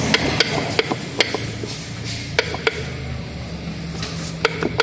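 Sharp, irregular knocking from a Fiat Palio/Siena front suspension strut, about a dozen knocks at uneven intervals. It is the sign of a failed bump stop (batedor), which lets the strut knock against its plastic top part.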